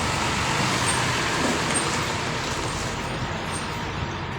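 Steady bus and road-traffic noise: a running engine under an even hiss, the high hiss thinning out about three seconds in.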